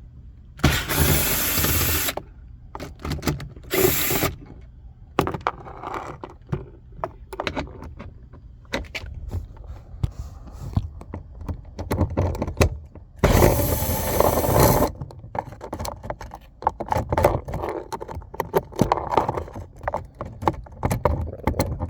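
A power drill with a socket extension spins out door-panel bolts in three bursts: a run of about a second and a half near the start, a short burst a few seconds in, and another run of about a second and a half past the middle. Between the bursts come clicks and knocks of tools and parts being handled.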